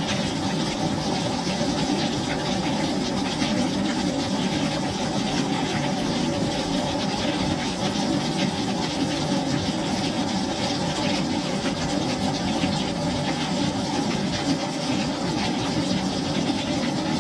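Rain falling steadily on a wooden deck: a dense, even patter of drops on wet boards.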